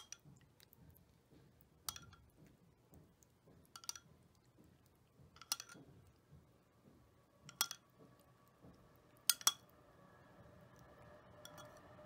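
Metal spoon clinking against glass bowls as dressing is spooned over boiled greens: about seven short, bright clinks, roughly every two seconds, two in quick succession near the end.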